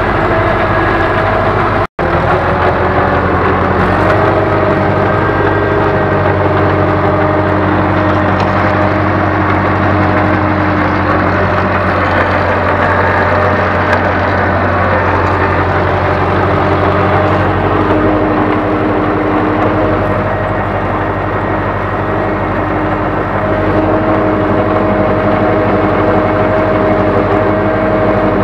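Ursus tractor's diesel engine running steadily under load while pulling a plough through the field. The sound cuts out for an instant about two seconds in.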